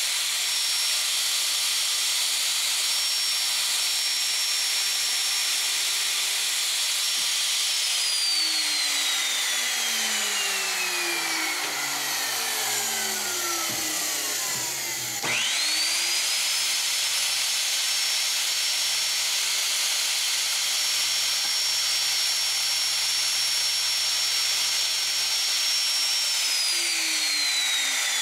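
Makita 3612 plunge router cutting a shallow slot in wood: a steady high whine. It is switched off about a third of the way in and spins down slowly, is switched back on in the middle and snaps straight up to speed, then is switched off and spins down again near the end. A steady rushing noise goes on under it all, even while the router is off.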